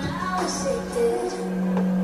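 Background music without vocals: a held low note with sliding higher tones above it.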